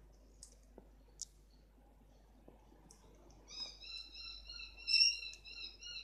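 Small pet parrot: a few faint beak clicks, then from about three and a half seconds in a wavering, whistled warble held on one pitch, loudest about five seconds in.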